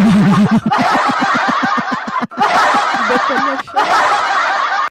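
A woman laughing hard into a microphone, a quick string of breathy laugh pulses at first, then longer wheezing laughter broken by two short catches of breath.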